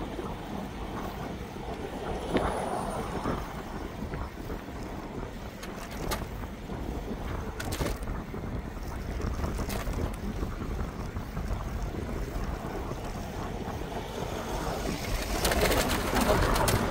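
Wind rushing over a handheld phone's microphone while riding an e-bike along a road, over a steady low rumble of road noise. It grows louder near the end.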